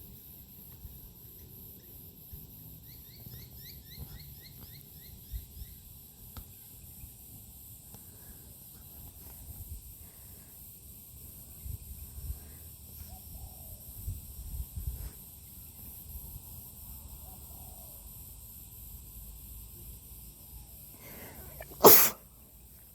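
A single sharp sneeze near the end, by far the loudest sound. Earlier, a bird chirps a quick run of about ten short notes in the background.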